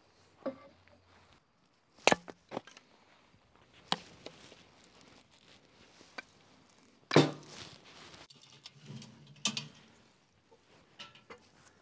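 Hatchet splitting kindling on a wooden chopping stump: a series of sharp, separate wooden chops one to three seconds apart, the loudest about seven seconds in, with lighter knocks near the end.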